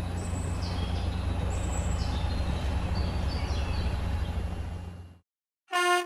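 A steady low motor hum with birds chirping over it, fading out about five seconds in. A cartoon truck horn starts to honk just before the end.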